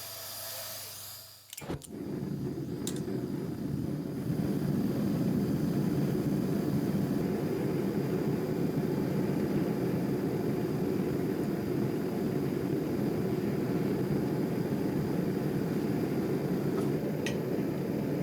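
A forge being lit: a short hiss, then a sharp click about two seconds in, then a steady low rushing noise that builds over the next couple of seconds and holds as the forge runs.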